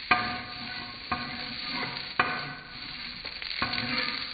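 Soaked rice sizzling as it is lightly stir-fried in desi ghee in a nonstick frying pan, with a spatula scraping through the grains. The spatula strikes the pan in about four sharp knocks, the loudest near the start and a little past two seconds in.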